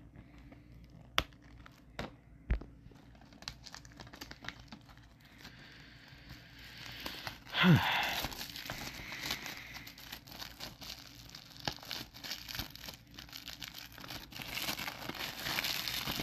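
Plastic shrink wrap being torn and peeled off a DVD case: a few sharp clicks at first, then crinkling, with a loud rip about halfway through and more steady crinkling near the end.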